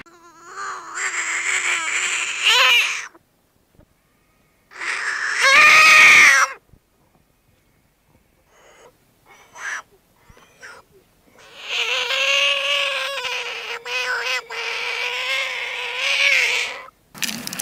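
Horned frog calling: three long, wavering cries, the middle one the loudest and the last about five seconds long, with a few short faint calls between them.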